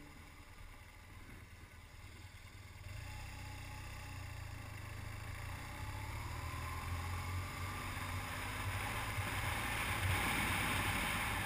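BMW R1200GS boxer-twin engine pulling away from a stop and accelerating, growing steadily louder, with wind and road noise building as speed rises.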